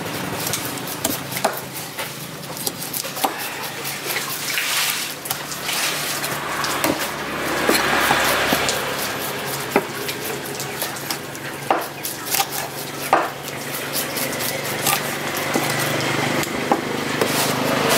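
Knife cutting skipjack on a thick wooden chopping block: irregular sharp knocks and scrapes of the blade against the wood, over a faint steady low hum.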